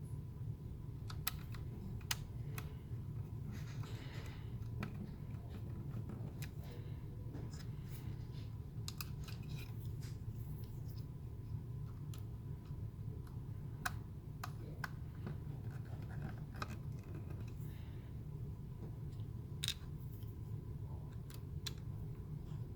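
Scattered light clicks and taps of small plastic parts and a hand tool being handled while the A/C control unit is put back together, over a steady low hum.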